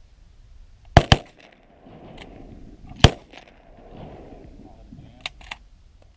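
Shotgun shots: two in quick succession about a second in, and a third about two seconds later. Two fainter sharp cracks come near the end.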